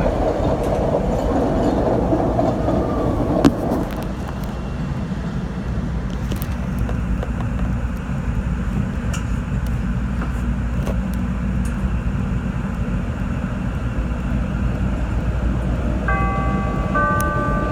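Chicago 'L' rapid-transit train slowing to a stop in the first few seconds, then standing at the platform with a steady low rumble and occasional faint clicks. Near the end a two-note falling chime sounds, the CTA's door-closing signal.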